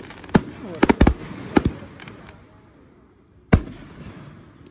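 Aerial fireworks going off in a quick string of sharp bangs over the first two seconds. After a short lull, one loud bang comes about three and a half seconds in.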